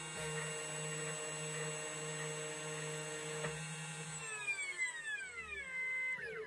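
Key cutting machine's spindle motor whining steadily, then winding down in pitch over the last two seconds and stopping as the key cut finishes.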